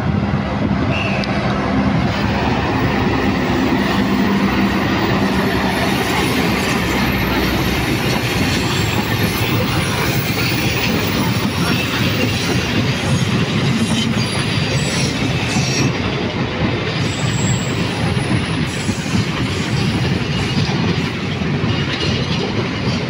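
A passenger train passing close: the diesel-electric locomotive goes by with its engine running over the first several seconds, then the coaches roll past with a steady, loud noise of wheels on rails.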